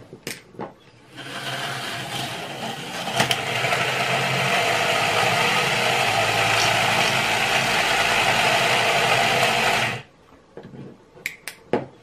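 Small electric motor and plastic gears of a Tyco US1 electric truck and its operating log-loading bulldozer whirring steadily for about nine seconds as the bulldozer pushes logs into the truck's dump bed. The whirring gets louder after a sharp click about three seconds in and stops abruptly near the end, with a few light clicks just before and after.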